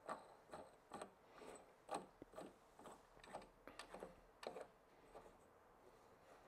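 Faint, regular clicking, about two a second, as the clamping knob on a teleprompter's rear monitor bracket is turned by hand and tightened down onto the rails; the clicks stop about four and a half seconds in.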